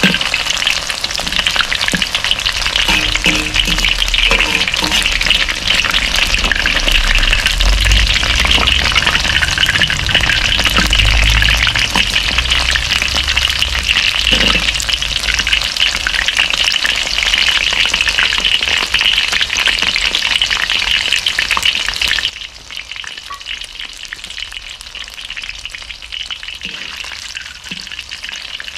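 Battered vegetable tempura deep-frying in hot oil in a wok: a steady, dense crackling sizzle. About three quarters of the way through it drops suddenly to a quieter sizzle.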